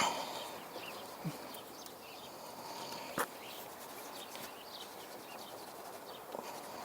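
Birds chirping in the background, with a few brief sharp knocks, the first right at the start and another about three seconds in.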